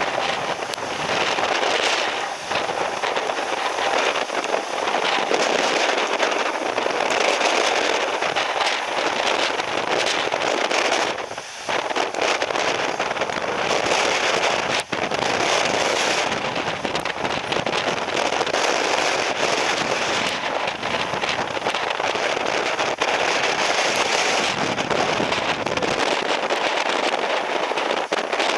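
Typhoon wind and heavy rain: a loud, dense crackling rush that rises and falls in gusts, with a brief dip about eleven seconds in.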